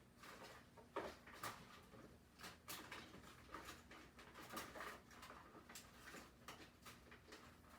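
Faint, irregular clicks and rustling of hands rummaging through a collection of BGA reballing stencils.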